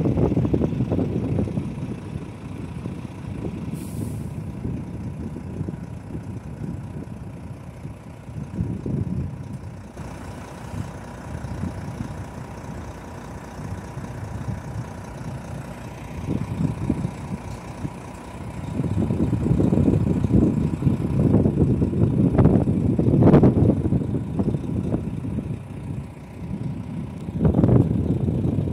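Diesel engine of a semi-truck tractor unit idling close by, its low rumble swelling louder in the second half, with a brief hiss of air about four seconds in.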